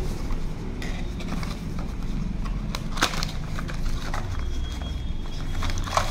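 A small cardboard box being handled and opened by hand: scattered light scrapes and taps of card, a sharper one about three seconds in and a few more near the end, over a steady low background hum.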